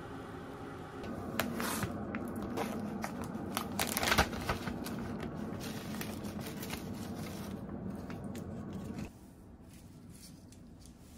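A foil-lined plastic pouch of roasted nori seaweed being handled and opened, crinkling and rustling with a cluster of sharp crackles about four seconds in, over a steady low hum that stops suddenly near the end.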